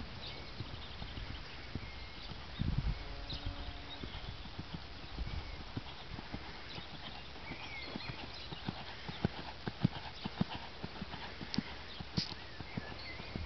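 Hoofbeats of a grey cob moving under a rider on a soft arena surface. It trots and then canters, and the footfalls come as a run of dull, evenly spaced strikes that grow clearer in the second half.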